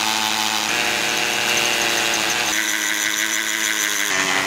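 Cordless drill running steadily as it bores into concrete pavement with a long masonry bit. Its motor pitch shifts abruptly to a new level a few times.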